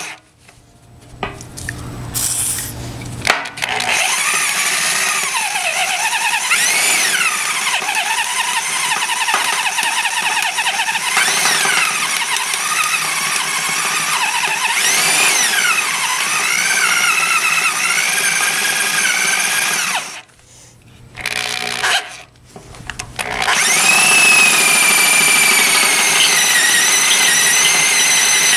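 Craftsman cordless drill turning a large Silver & Deming bit through the steel of a tractor loader bucket, its motor whine wavering in pitch as it bogs under load. It stops briefly just after the start and again about two-thirds of the way through, then runs on at a steadier, higher pitch near the end.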